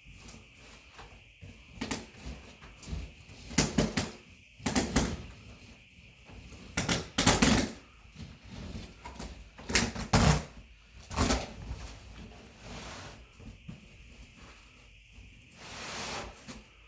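Carpet being pulled up from a bedroom floor: irregular ripping and rustling noises with a few knocks, the loudest in the middle.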